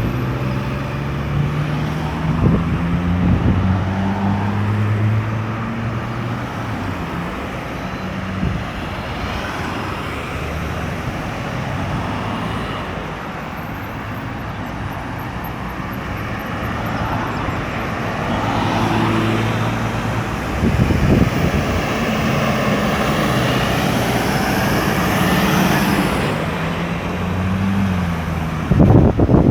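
Road traffic at a busy roundabout: cars and trucks passing one after another, engines rising and falling as they pull through, with heavier engine sound in the first few seconds and in the last third.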